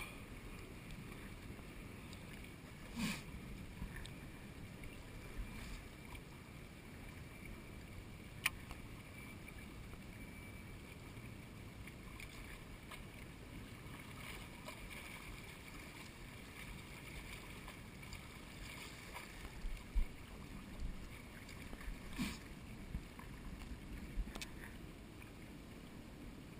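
Faint, steady low rumble of a bay shoreline, broken now and then by a few sharp clicks and knocks.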